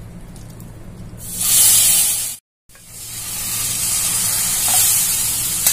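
Masala-spiced oil sizzling faintly in a kadai, then a loud hiss about a second in as wet, pressure-cooked mutton goes into the hot oil. The sound cuts out briefly, then the pan sizzles steadily as the mutton is stirred and fried in the masala.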